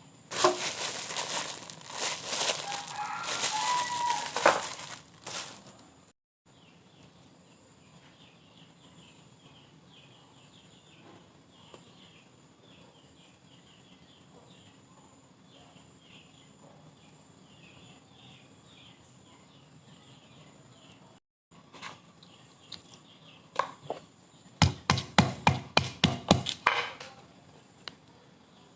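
Rustling and clattering for the first few seconds, then a long quiet stretch with faint high chirping, then a quick run of sharp knocks near the end.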